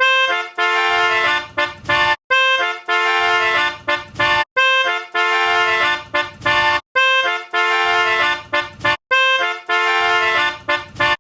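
Instrumental music: the same short phrase of a few pitched notes, played on an instrument with a rich horn-like tone, repeats in a loop about every two seconds with a brief silence between repeats.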